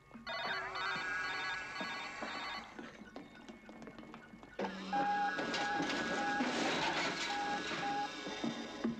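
Electronic sci-fi machine sound effects for the space base's heavy hatch: a whine that rises and then holds steady, heard twice with a pause between. The second stretch is longer and louder, with a short beep repeating under it a little under twice a second.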